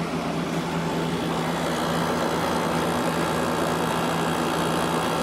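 GE 8,100 BTU air conditioner running steadily: its GE compressor humming under load, a little louder than at start-up, which is normal, with the fan blowing air over it.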